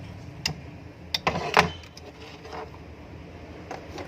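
A few separate sharp clicks and clacks from handling a hand impulse sealer after repair, with the loudest one about a second and a half in.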